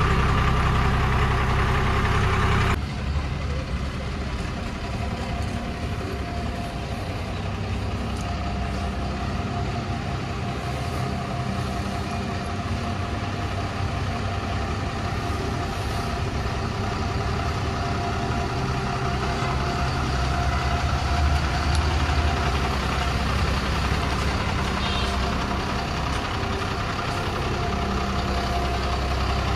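Heavy truck's diesel engine idling steadily. The sound is louder for the first few seconds and drops abruptly about three seconds in.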